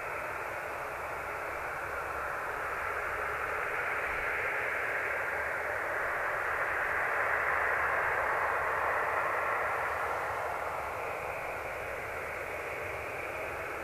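Jet engines of a Boeing 737-800 heard from far off as the airliner moves slowly along the runway. They make a steady rushing hiss that swells to a peak about halfway through and then eases off.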